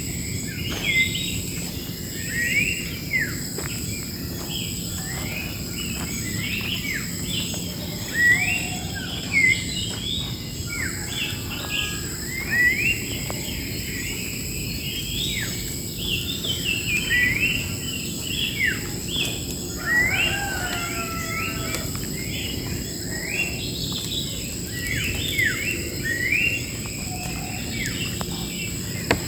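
Songbirds chirping and calling in quick, repeated short notes, many sweeping sharply in pitch, over a steady high-pitched insect drone.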